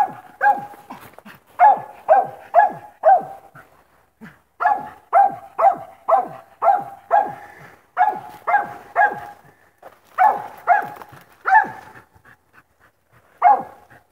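Coon dog barking treed: runs of short chop barks, about two a second, with brief pauses between runs. The barking is the sign that the dog has game up a tree in thick cover.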